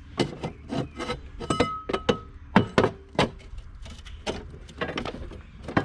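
A quick, irregular series of metal clanks and knocks, a few ringing briefly, as the steel lawn mower deck is handled and shifted onto its back.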